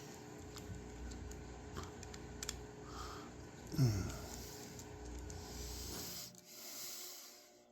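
Faint small clicks and ticks of a driver bit working the pocket-clip screws out of a folding knife, with a short low vocal sound about four seconds in.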